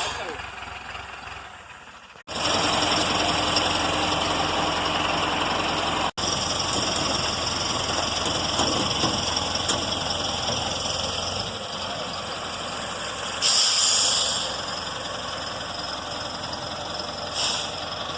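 An engine running steadily, with two short bursts of hiss near the end.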